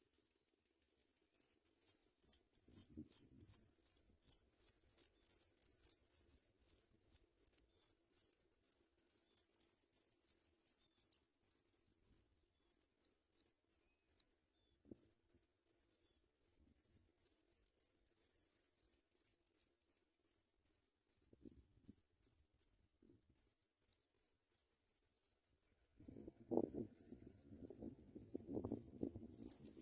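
High-pitched, rapid chirping from African pipit nestlings begging. It is thick and loud for about the first ten seconds, then breaks into shorter bursts. A low rustling comes in near the end.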